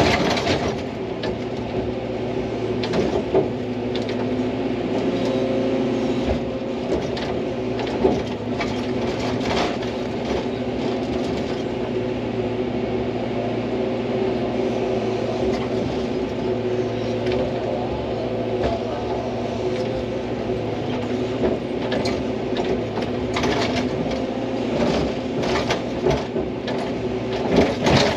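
Hydraulic excavator's diesel engine running steadily under working load, with scattered knocks and scrapes from the bucket digging rock and soil, more of them near the end.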